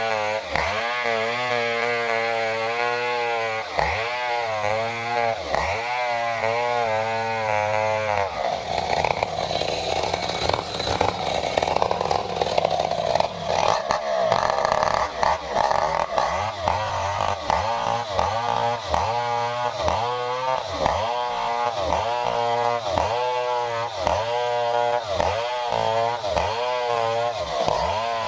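Stihl 070 two-stroke chainsaw ripping lengthwise through a durian log, its engine pitch dipping and recovering over and over under the load of the cut. A steadier, noisier stretch of high running comes about a third of the way in.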